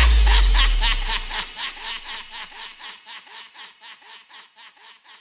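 DJ sound-effect laugh: a snickering laugh repeated in even pulses, about four or five a second, fading out steadily, over a deep bass boom that dies away in the first two seconds.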